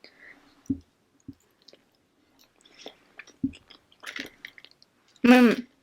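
Close-up eating sounds of someone chewing a burrito: soft wet chewing with scattered clicks and smacks and a few low thuds. Near the end comes one short, loud voiced sound from the eater.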